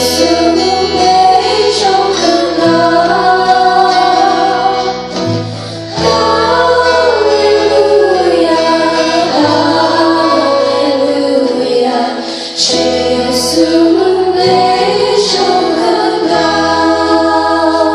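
A live band plays a worship song, with singing over guitar and steady low notes that change every couple of seconds.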